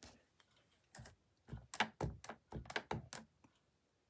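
A clear acrylic stamp block with a word stamp mounted on it, tapped again and again onto an ink pad to ink the stamp: a quick run of light taps, about eight in two seconds.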